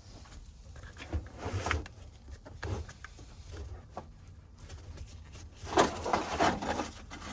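Irregular rustling and knocking handling noises, with a louder stretch of crinkling near the end.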